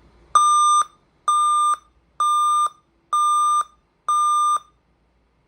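A Dell desktop computer's system speaker beeping an error code at startup: five identical beeps, each about half a second long, roughly one a second, in a steady high tone. This is a startup (POST) beep code that signals a hardware fault keeping the computer from booting.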